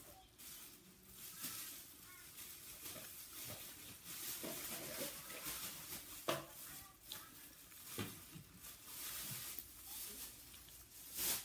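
Hands tearing apart a piece of fried chicken: soft crackling and rustling, with a few sharp clicks.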